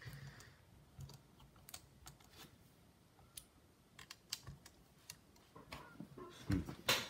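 Scattered light clicks and taps of a precision screwdriver and small parts being handled on an open laptop, with a louder knock near the end.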